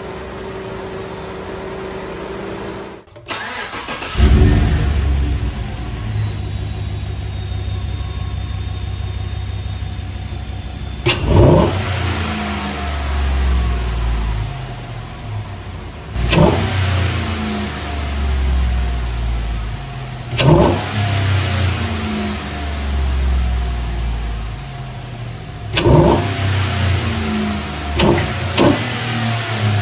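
Chevy Silverado 1500 V8 idling, then after a short break idling deeper and louder and blipped to a sharp rev about every five seconds, with two quick blips near the end. This is an engine-sound test of a cold air intake.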